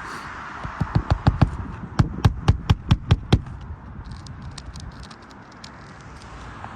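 Hammer driving roofing nails into a replacement asphalt shingle: two quick runs of sharp blows, about a dozen in all, followed by lighter tapping.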